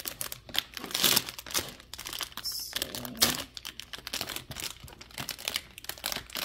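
Shiny plastic blind-bag toy pouch crinkling in irregular crackles as it is handled and pulled open at the top.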